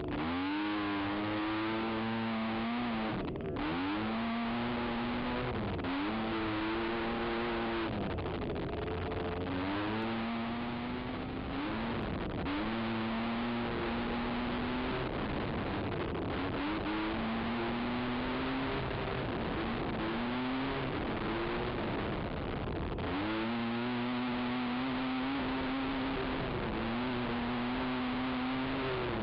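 Race ATV's engine running hard under the rider's throttle, its pitch climbing, holding, then dropping again every two to three seconds as it revs up and shifts, over a rough rushing noise.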